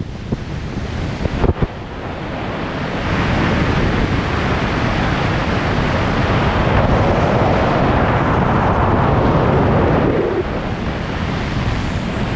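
Wind rushing hard over the body-mounted camera's microphone in wingsuit flight, growing louder a few seconds in as the suit picks up airspeed. A couple of short sharp knocks about a second and a half in.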